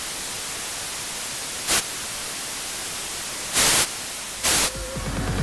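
TV-style static hiss, steady, broken by three louder bursts of static: a short one a little under two seconds in and two longer ones near the end. A pulsing electronic music beat starts to come in just before the end.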